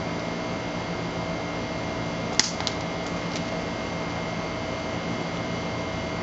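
A small hard object dropped onto a concrete paver: one sharp click as it lands, then a few lighter ticks as it bounces and settles over the next second, over a steady background hum.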